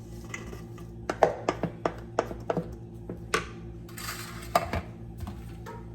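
Kitchenware being handled: a quick run of sharp clinks and knocks about a second in, then a few single knocks.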